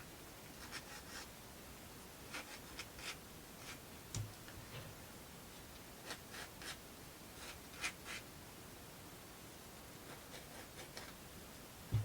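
Sandpaper rubbed in short, irregular scratching strokes over small laser-cut plywood model pieces, smoothing their edges. A soft low thump about four seconds in.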